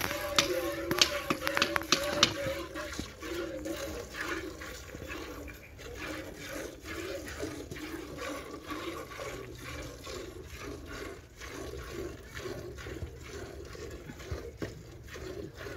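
Milk squirting into a bucket as a cow is milked by hand, in quick regular spurts about two or three a second.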